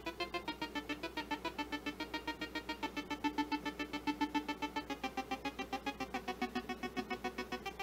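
Homemade FPGA synthesizer with two oscillators mixed, playing a bright buzzy note that the envelope retriggers in quick pulses, about eight a second. The pitch steps down a little about five seconds in.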